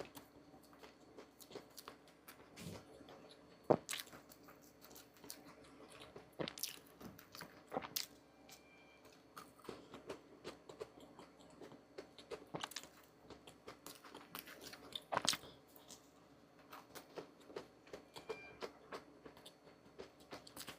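Hand food-preparation sounds: irregular small clicks, taps and soft squishes, with two sharper knocks, one near the start and one past the middle.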